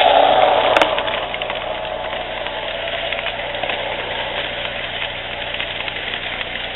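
Model train rolling past close by on its track. The diesel locomotive goes by first, loudest in the first second, then its cars follow with a steady run of wheel and track noise and light ticking. A sharp click comes just under a second in.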